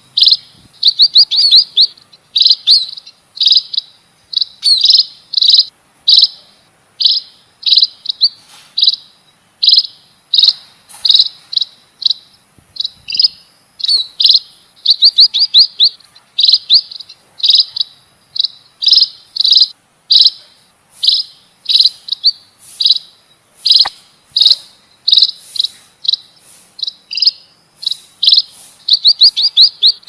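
Munia (pipit/emprit finch) lure calls: bursts of quick high chirps repeating about once a second, over a steady high insect buzz.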